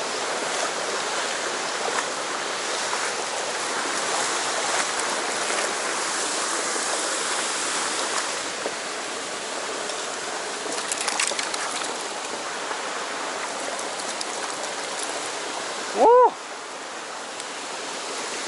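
Mountain stream rushing steadily over rocks, with a brief clicking rattle partway through. Near the end a man's short, loud exclamation of "Oh!" rises above the water.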